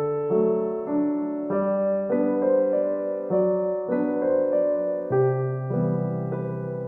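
Soft background piano music, a gentle melody of notes changing about every half second over a bass line.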